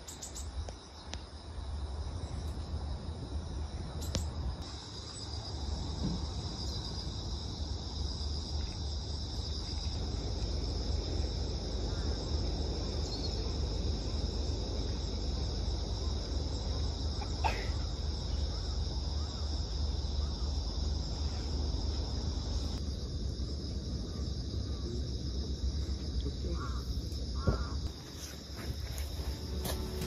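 Insects chirring steadily in one high, even band, over a low steady rumble. A few short calls stand out, one in the middle and a couple near the end.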